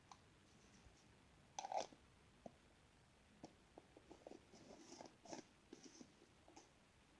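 Slime being squeezed and handled by hand: faint, scattered sticky clicks and pops, with a louder crackle about one and a half seconds in and a quicker run of small clicks in the second half.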